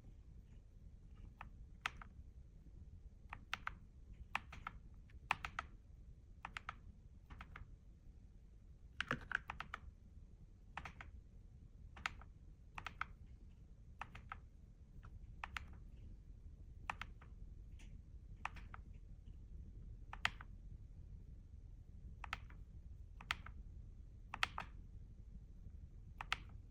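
Keys of a Keychron K2 V3 mechanical keyboard being pressed one at a time in an unhurried, irregular rhythm of sharp clicks, about one or two a second, with a brief quick flurry about nine seconds in.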